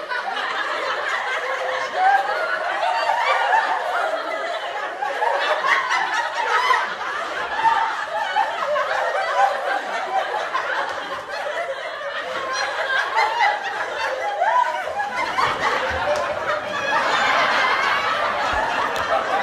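People laughing without a break through the whole stretch, with the sound changing in character about three-quarters of the way through.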